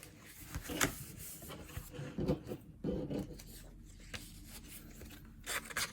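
Cardstock and paper being handled, rubbing and sliding against each other in irregular rustles with a few sharper taps.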